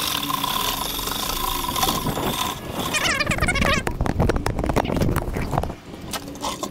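Corded electric drill spinning a homemade tulip-auger paddle in a bucket of mortar: a steady motor whine that stops about two and a half seconds in. A brief bird chirping follows, then a run of clicks and rustling.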